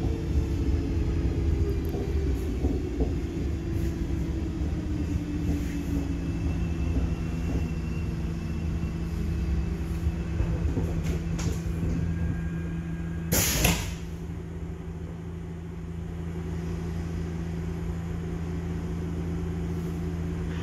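Munich U-Bahn train heard from inside the car, rumbling, with a motor whine that falls in pitch over the first several seconds as it slows. About thirteen seconds in comes a short, loud hiss, then a quieter steady hum.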